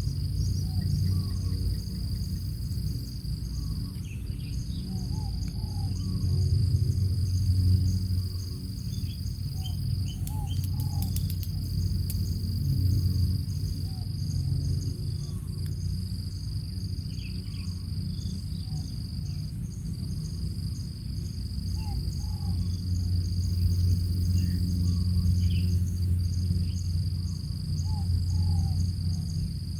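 An insect trilling steadily in long bouts of a few seconds with short breaks, over a steady low rumble, with scattered soft bird chirps.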